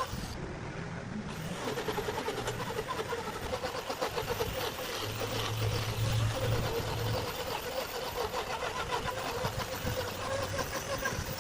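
Large wood lathe running steadily, its motor humming under the rough, continuous noise of a tool cutting the spinning rosewood log.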